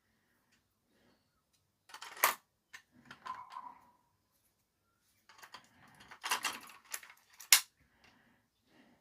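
Hard plastic parts of a toy bubble gun being handled and fitted back together: scattered clicks and short rattles, with a sharp click about two seconds in and another near the end.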